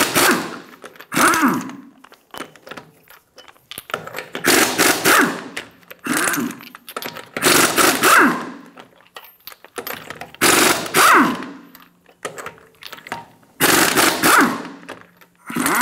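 Pneumatic impact wrench removing wheel lug nuts one at a time. It runs in repeated short, loud bursts of rattling hammering, one every one to three seconds, each trailing off in a falling whine as the air motor winds down.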